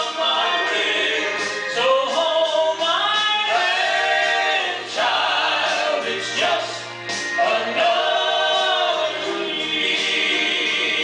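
Southern gospel vocal group singing in harmony, several voices holding and bending long notes together.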